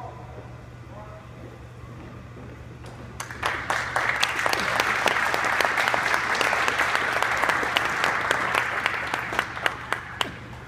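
Audience applauding: the clapping starts about three seconds in, holds steady for several seconds and dies away shortly before the end.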